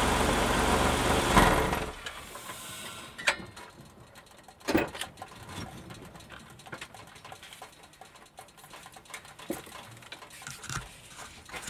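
GM Series II 3800 V6 in a 1988 Fiero running steadily at idle, heard from beneath the car beside the Getrag 282 transaxle, then shut off a little under two seconds in. After that only scattered clicks and knocks are heard, the loudest about five seconds in.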